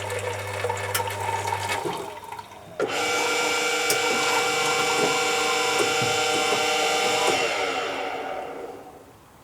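Bean-to-cup coffee machine brewing a latte: a low pump hum with faint ticking for the first two seconds, then about three seconds in a louder, steady whirring and gurgling as it dispenses, which fades away near the end.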